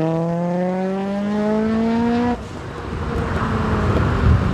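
Mitsubishi Evo V's twin-charged (supercharged and turbocharged) four-cylinder engine heard from inside the cabin under hard acceleration: the engine note climbs steadily in pitch, then breaks off abruptly a little over two seconds in. It picks up again as a rougher, noisier engine sound at a lower pitch.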